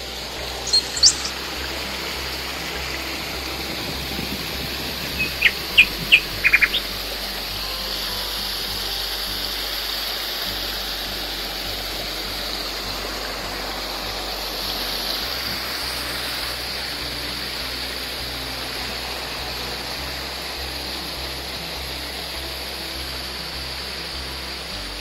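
A small stream of water running over rocks with a steady hiss. Birds chirp briefly about a second in, then give a quick run of short chirps around six seconds in.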